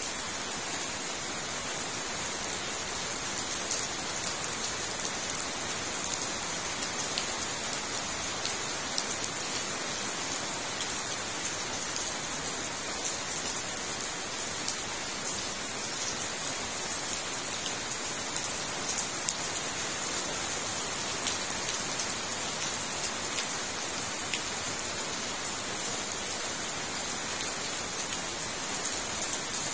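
Steady rain falling on a fish pond: an even hiss dotted with many small ticks of drops.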